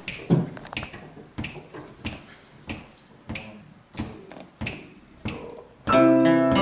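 Finger snaps counting in a steady beat, about one and a half a second. Near the end, piano and acoustic guitar come in together with the song's opening chords.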